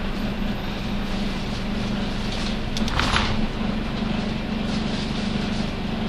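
Nissan Diesel UA city bus heard from inside while running, with a steady hum over the engine and road noise: the bus's abnormal running noise. A short hiss comes about three seconds in.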